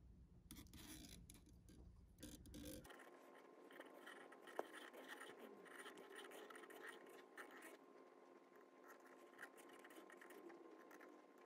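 Near silence: faint scratching and rustling of fingers wrapping fly-tying thread. A low hum cuts off about three seconds in.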